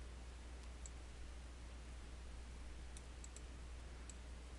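A few faint computer mouse clicks, one about a second in and a quick cluster around three seconds in, over a steady low hum.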